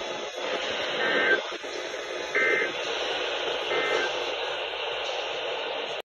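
Three short warbling data bursts of an Emergency Alert System end-of-message code, about 1.3 seconds apart, played through a weather radio's speaker over steady static hiss. The bursts signal that the flood watch broadcast has ended.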